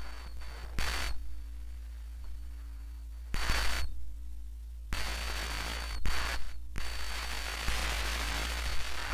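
Static hiss over a steady low electrical hum. The hiss cuts in briefly about a second in and again around three and a half seconds, then thickens and keeps going from about five seconds on.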